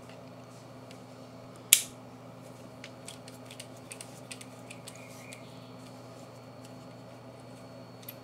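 Small metal clicks and light ticks from a T7 Torx screwdriver working the tiny extractor screw on a pistol slide: one sharp click about two seconds in, then a scatter of faint ticks over the next few seconds.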